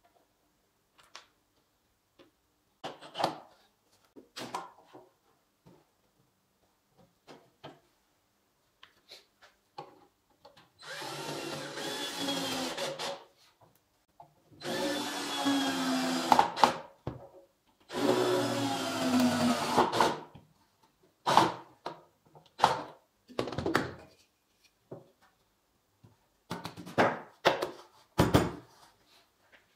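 Cordless drill driving screws into wooden boards: three runs of about two seconds each in the middle, the motor's pitch falling as each screw goes in. Short knocks and clicks of boards and tools being handled come before and after.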